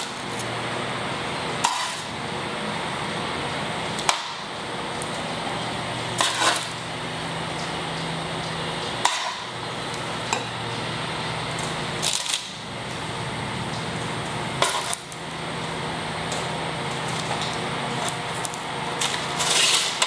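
Metal kitchen tongs clacking against a ceramic plate and a metal sheet pan as chicken pieces are picked up and stacked: a sharp clack every few seconds over a steady background hiss.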